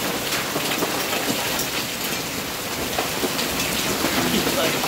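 Hail falling on a gravel yard and brick patio: a dense, steady patter of many small clicking impacts.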